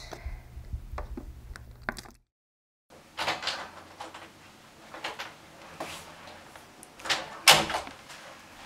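A wooden room door being opened about three seconds in, with scraping and handling sounds. Near the end it is shut with two sharp knocks, the second the loudest.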